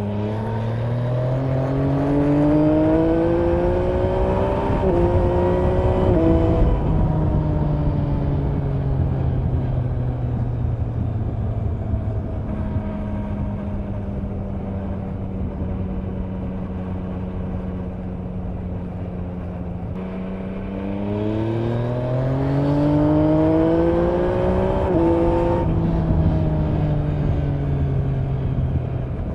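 2024 Yamaha MT-09's three-cylinder engine through an Akrapovic exhaust with its dB-killer fitted, accelerating with the pitch climbing in steps as it upshifts, then easing off with the pitch falling. It holds a steady pitch for several seconds in the middle, then pulls up through the gears again and drops off near the end.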